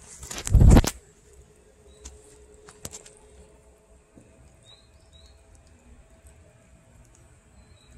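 An orange cat and a calico kitten eating wet cat food from a plastic bowl: small scattered licking and chewing clicks. A loud rustling thump comes about half a second in, and a few faint bird chirps follow later.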